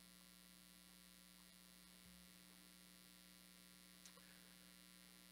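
Near silence: a steady, faint electrical mains hum, with one faint tick about four seconds in.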